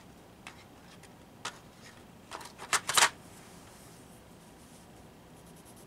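A few sharp clicks and clatters, loudest about three seconds in, as colored pencils are handled. Near the end a colored pencil starts shading on sketchbook paper in rapid, even strokes.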